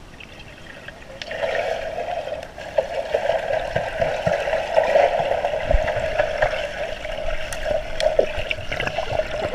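Muffled water noise of a swimming pool heard through a submerged camera, swelling about a second in as two swimmers kick and stroke underwater toward it, then holding steady with small clicks.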